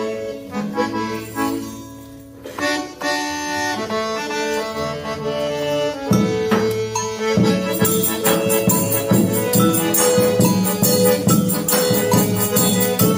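Instrumental introduction of a song by a live band. A melody plays alone at first. About six seconds in the full band comes in, louder and with a steady beat, and fast high percussion ticking joins about eight seconds in.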